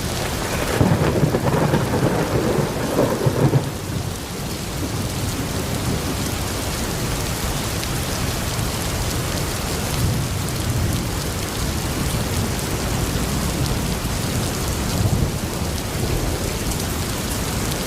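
Heavy rain falling steadily, with a rumble of thunder in the first few seconds that ends about four seconds in, and fainter low rumbles later on.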